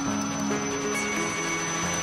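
Ambient electronic music played live on a Eurorack modular synthesizer: sustained, overlapping low notes that step to new pitches every half second or so, over a steady high tone.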